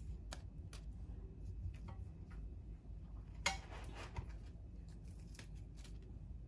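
Hands tearing freshly cooked flaxseed flatbread (kita) into pieces: scattered soft crackles and rustles, with one louder crackle about three and a half seconds in, over a low steady hum.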